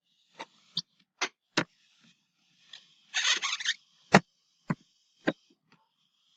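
A series of short, sharp clicks and knocks at uneven intervals, the loudest just after four seconds in, with a brief rustle about three seconds in.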